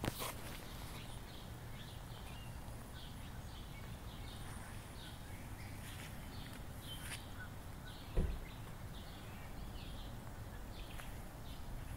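Birds chirping: short high calls repeated every second or so, over a low steady rumble, with a single knock about eight seconds in.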